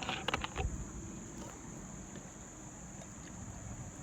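Steady high-pitched insect drone, with a few light clicks and knocks in the first second.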